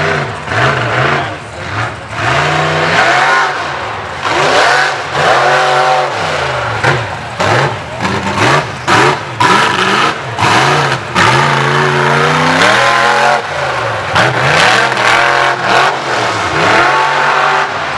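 Mega truck engine revving hard under load as the truck runs through a mud bog pit, its pitch climbing and falling over and over with the throttle. Several brief cut-outs break the sound around the middle.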